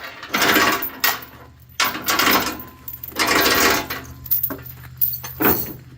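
Steel tie-down chain clanking and rattling in several bursts as it is handled, the chain having just come apart, over the steady low hum of an idling engine.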